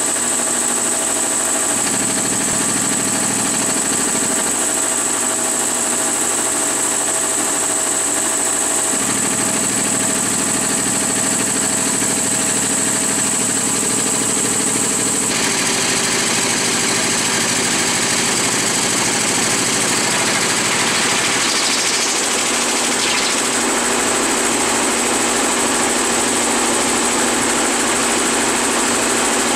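Polar Air two-cylinder electric air compressor running steadily in regular mode, its intakes drawing through hoses to a pickup truck muffler that acts as an intake silencer. About halfway through the sound turns hissier and brighter.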